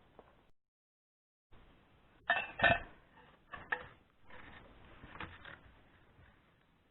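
Clinks and knocks of hard metal parts being handled, most likely the vintage vacuum cleaner's fittings. After a second of dead silence come two loud knocks about two and a half seconds in, then a few lighter clicks.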